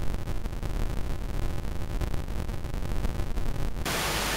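Low, unsteady rumbling noise that cuts off abruptly near the end and gives way to a steady hiss.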